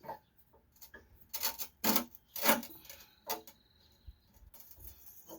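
A tow attachment being tightened onto a mini skid steer's bucket: a series of short, separate scrapes, irregularly spaced about half a second apart.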